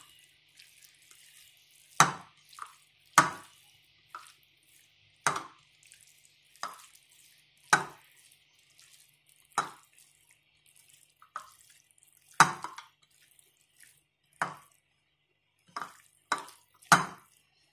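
Raw chicken pieces being mixed by hand with a wet spice paste on a glass plate: about a dozen short, wet squelching slaps, one every second or two.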